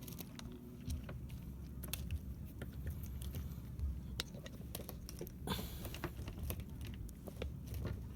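Scattered light clicks and taps at irregular intervals over a steady low rumble, with a brief rushing noise about five and a half seconds in.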